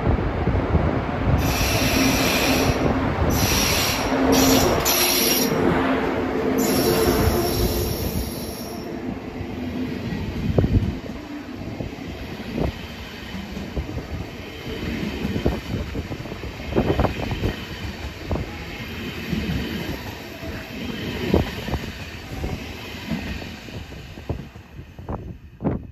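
ICE 2 high-speed train (DB class 402) running past close by. Its wheels squeal high-pitched in several stretches during the first eight seconds over a heavy rumble. After that the rumble is quieter, with scattered sharp knocks of the wheels over the rail joints.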